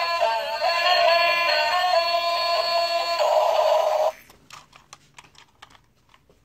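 Electronic tune with a synthetic singing voice, cutting off suddenly about four seconds in; after it, faint scattered clicks of the plastic toy being handled.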